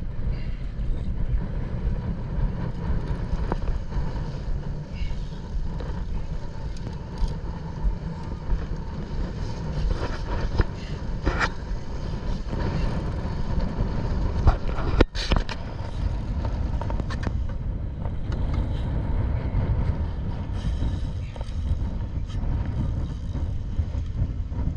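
Fishing boat's engine running steadily as a low rumble, with a few sharp knocks and clicks, the clearest about eleven and fifteen seconds in.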